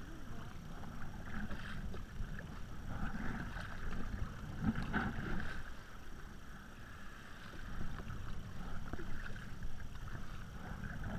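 Water splashing and sloshing around a tandem sea kayak paddled through choppy open ocean, with paddle blades dipping in, over a steady rumble of wind on the microphone.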